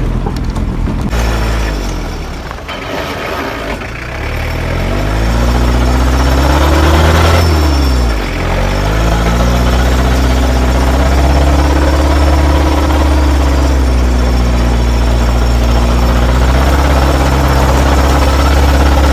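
4x4's engine running under load while driving. Its pitch climbs for a few seconds, drops sharply about eight seconds in, then holds steady as it pulls on.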